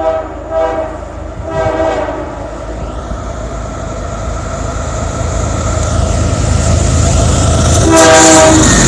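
A CSX GE ES40DC diesel locomotive leading an intermodal freight train sounds its horn in three short blasts, then one loud blast about eight seconds in as it reaches the camera. Its rumble grows steadily louder as it approaches.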